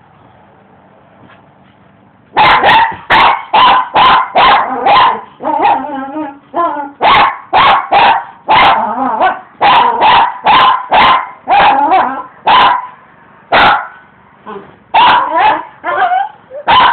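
A dog barking in fast runs, about two to three barks a second, with rougher growly stretches between some barks, as he goes after a rock. Quiet for about the first two seconds, with a brief pause about two-thirds of the way through.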